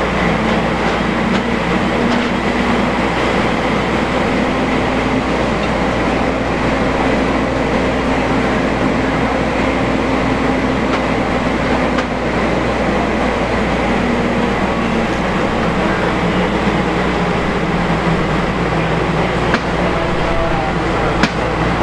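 Fire apparatus running steadily under pump load: a low diesel engine drone with a faint steady high whine over a broad even rush.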